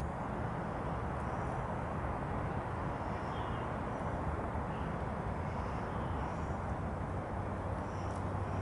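Steady outdoor background rush with no distinct source, with a few faint, short bird chirps scattered through it and a low hum growing a little stronger near the end.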